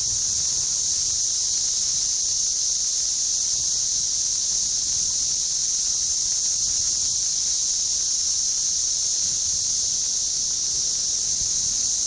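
Chorus of Magicicada cassini periodical cicadas (Brood IV), a steady high-pitched buzzing drone from many males calling together, holding at an even level without a break.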